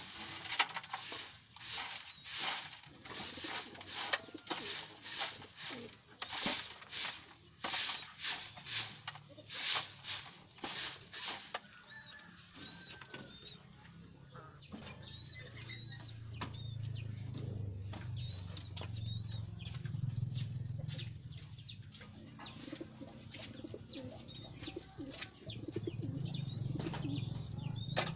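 Soft grass broom (walis tambo) sweeping a dirt floor in quick strokes, about two a second, for the first twelve seconds or so. After that, pigeons cooing low and steadily, with short high chirps.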